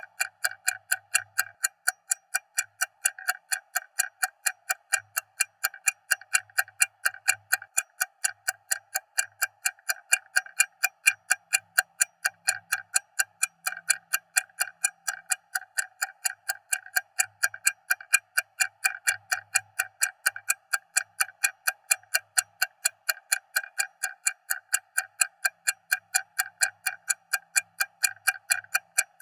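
Stopwatch ticking loudly: quick, even ticks, several a second, keeping a steady pace throughout.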